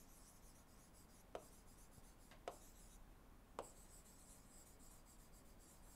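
Faint scratching of a stylus writing on a tablet, with three light taps about a second apart.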